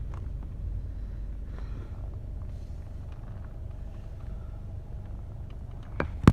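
Steady low rumble of a car, with faint scattered clicks of handling. Two sharp knocks come close together near the end.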